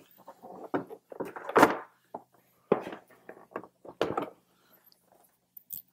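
Outer fairing shell of a Harley-Davidson Road Glide being fitted back on: a string of irregular knocks and clunks as the panel is handled and set against the bike, the loudest about one and a half seconds in. A faint steady hum lies underneath.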